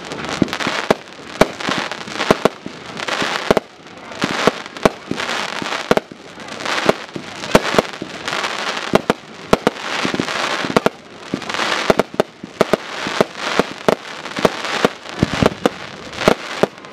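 Aerial fireworks in a professional display: a rapid, uneven string of sharp bangs, often several a second, with hissing and crackling from the bursting stars between them.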